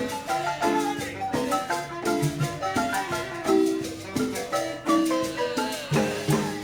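Marimba played: a quick run of struck notes carrying a melody over lower bass notes, dying away near the end.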